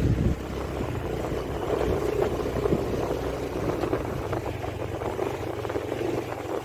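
A motorbike's small engine running steadily as it rides over a rough dirt track, with scattered small knocks and rattles.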